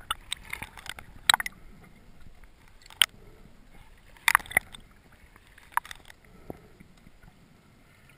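Underwater sound picked up through a diver's camera housing during a breath-hold dive: a low steady hiss broken by a few sharp clicks and knocks, about four of them spread through the first six seconds.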